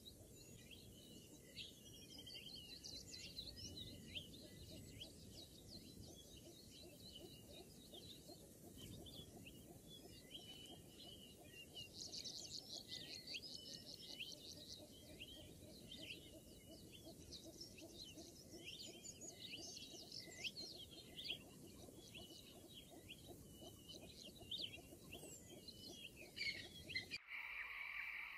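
Faint chorus of small birds chirping and twittering over a low, even background hiss; it cuts off abruptly near the end.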